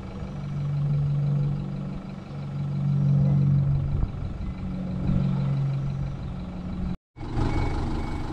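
Vehicle engine running steadily with a low hum that swells and eases, cutting out briefly twice near the end.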